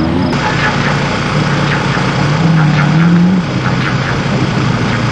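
Off-road desert race vehicle engine running loudly, its note climbing and then dropping back about three and a half seconds in.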